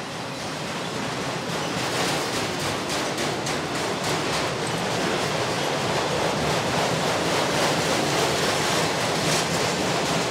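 Autorack freight cars rolling past close by: a steady rumble and rush of steel wheels on the rails, with quick clacks and rattles throughout. It gets a little louder about two seconds in.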